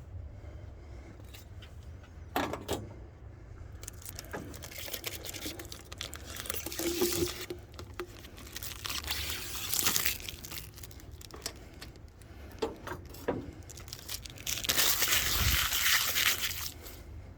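Handling noise from parts and tools being worked by hand: scattered clicks, knocks and clinks with rustling, and a louder, longer rustle near the end.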